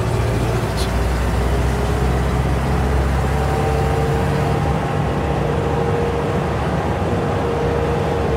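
A moving car's engine and tyre noise, a steady drone with a hum that rises slowly in pitch.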